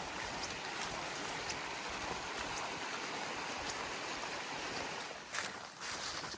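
Steady rushing of a mountain stream flowing below the trail, with a few footsteps on the trail near the end.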